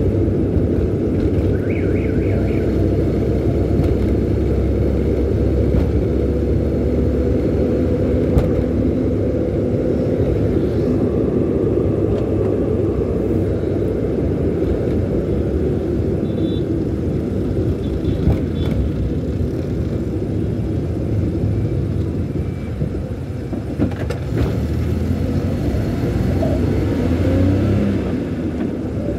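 Steady low rumble of a car on the move, heard from inside the cabin: engine and tyre noise. A few faint short high tones sound about two seconds in.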